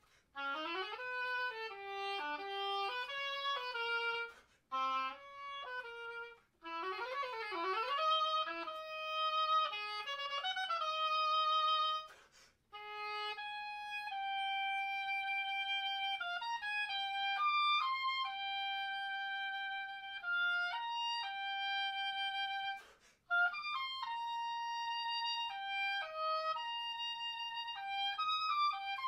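Solo oboe playing a contemporary piece. Quick, leaping runs open the passage, with a stretch of rapidly wavering pitch about seven seconds in. After about thirteen seconds come longer held notes, separated by brief pauses between phrases.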